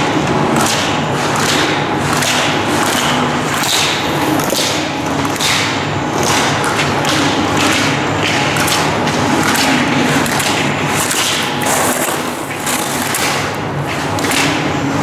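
Slalom skis scraping and carving on hard-packed snow: a hissing rasp at each turn, about one and a half turns a second, with knocks as the racer clears the gates. A steady low hum runs underneath.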